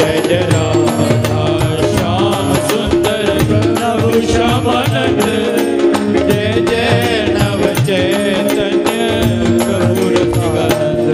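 Devotional kirtan music: held melodic notes and a wavering melody over a steady beat of drum and small percussion strokes.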